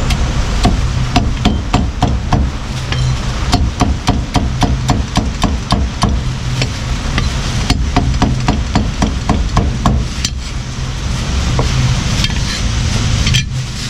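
Heavy meat cleaver chopping roast pork on a thick round wooden chopping block: sharp chops in quick runs of about four a second, broken by short pauses, over a steady low hum.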